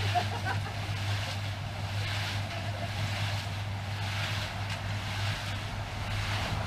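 Concrete mixer running: a steady low motor hum with the noisy churn of the mix turning in the drum, swelling and fading every second or so.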